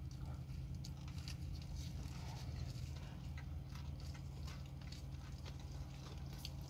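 Close-up chewing of a prosciutto sandwich: soft wet mouth sounds with small scattered clicks and smacks, over a steady low hum.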